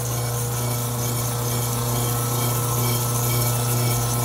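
Steel hair clipper blade ground flat against a spinning 1500-grit diamond sharpening wheel, a steady grinding hiss over the motor's hum. The grinding is hollowing out the middle of the blade's teeth.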